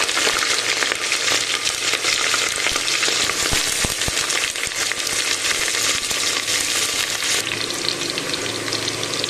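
Sliced onions sizzling in hot oil with whole spices in a pressure cooker: a steady frying hiss that eases a little near the end, with a few light knocks about halfway through.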